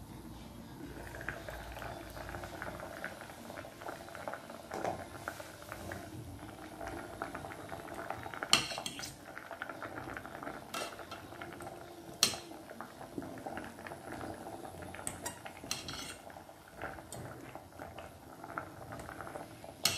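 Water at a rolling boil in a stainless steel saucepan with carrot pieces and broccoli stems cooking in it. Sharp metal clinks of a spoon against the pot come several times, the loudest about 8 and 12 seconds in.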